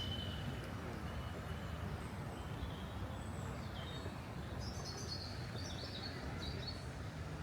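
Small birds chirping and twittering over a steady low outdoor rumble, with a quick run of chirps about five seconds in.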